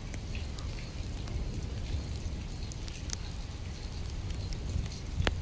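Steady rain falling, with scattered drop ticks through it and one sharp click near the end.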